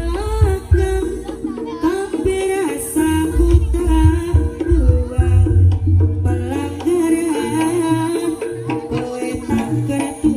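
Jaranan ensemble music: hand drums (kendang) beating a rhythm with heavy low strokes, under a wavering melody line.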